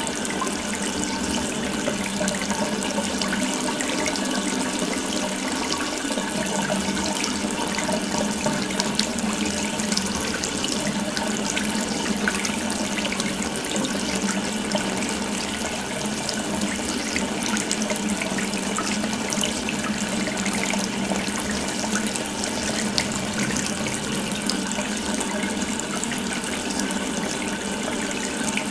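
Water running steadily from an open tap, a continuous splashing stream with no change.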